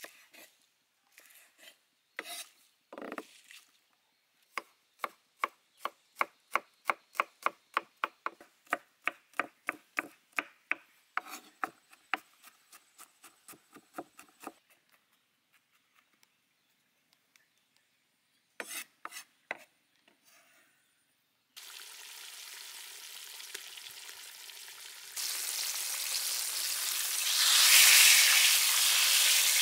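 Kitchen knife chopping green onions and garlic on a wooden cutting board: a few single cuts, then a fast even run of about four strokes a second. About two-thirds through it gives way to fish steaks deep-frying in a wok of hot oil, a steady sizzle that grows louder near the end.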